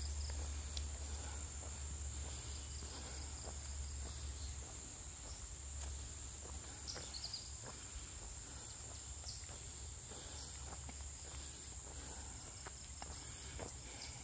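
Forest insects droning steadily at one high pitch, with faint footsteps on the trail now and then. A low rumble underneath fades after about five seconds.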